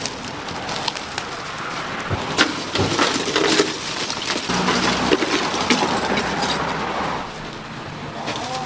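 A blade chopping into coconut shells, giving irregular sharp knocks and cracks.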